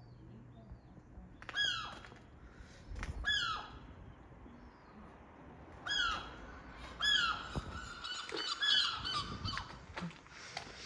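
Gulls calling: several short harsh squawks, each dropping in pitch, about six in all, bunched near the start and again in the second half.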